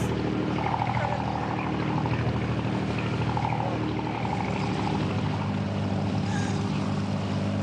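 Enclosed lifeboat's engine running with a steady drone.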